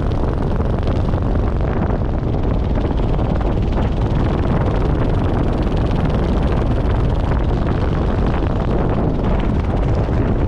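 Steady wind rushing over the microphone of a camera flown under an open parachute canopy.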